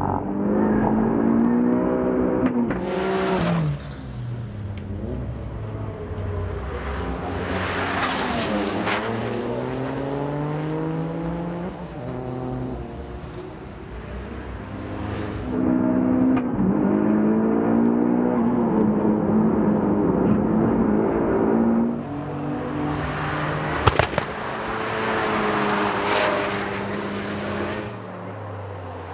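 Turbocharged Suzuki Swift Sport ZC32S (1.6-litre four-cylinder with a Trust TD04 turbo kit) being driven hard on a race track. The engine revs climb, then drop at each gear change, and the car rushes past several times. A short sharp pop comes late on.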